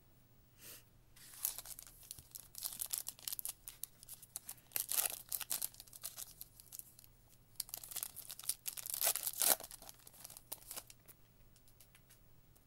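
Plastic wrapper of a 2023 Prizm football card pack being torn open and crinkled, in irregular crackling bursts, loudest near the middle and again about two-thirds of the way through.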